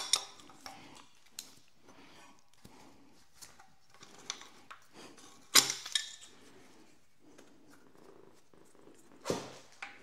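Metal hand tools clinking and clanking against an engine as its sensors are unbolted: scattered light clicks and knocks, with sharper clanks about five and a half seconds in and again near the end.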